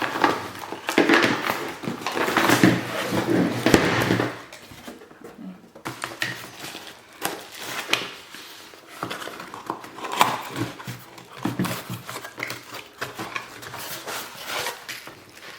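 A product box being opened and its packaging handled: irregular rustling and scraping with light knocks, busiest in the first few seconds.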